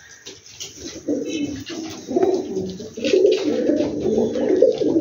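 Domestic pigeons cooing, a low warbling coo that grows louder about three seconds in, with a few light clicks over it.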